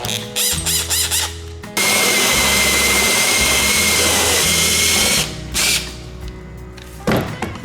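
A handheld power tool, drill-like, runs at a steady speed for about three seconds in the middle, over background music.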